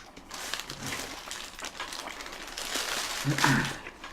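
Close-miked eating sounds: chewing with the crinkle and rustle of a food wrapper, busiest in the second half, and a brief hum of voice near the end.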